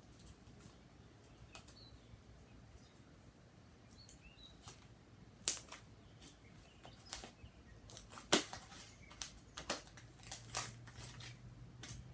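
Slime being worked by hand or stirred, giving a series of sharp sticky clicks and pops that grow more frequent in the second half.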